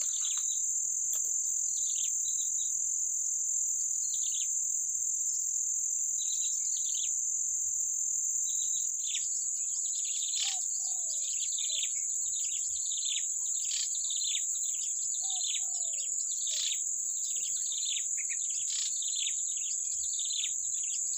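A steady high-pitched insect drone with birds calling over it: short falling chirps, scattered at first, then many in quick succession from about nine seconds in.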